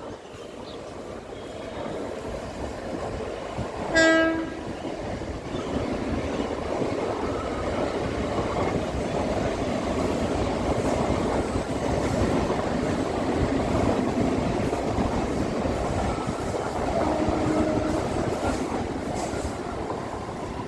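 A train running past with a steady rumble that builds and stays strong. It gives one short, loud horn blast about four seconds in, and a fainter horn sounds near the end.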